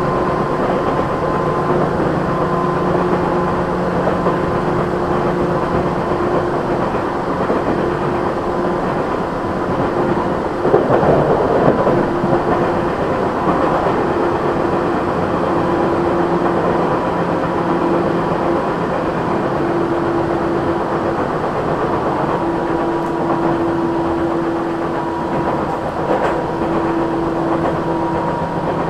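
Tokyu 8500-series electric commuter train running at speed, heard from on board: a continuous rumble of wheels on rail with steady whining tones from the running gear. About eleven seconds in there is a brief louder rattle.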